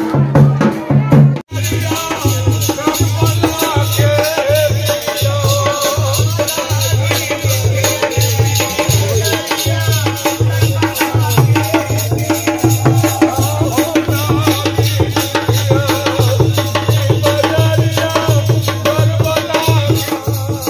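Music with a steady drumbeat, a rattle or shaker and a wavering sung melody. About a second and a half in, an earlier drumming cuts off sharply and this piece takes over.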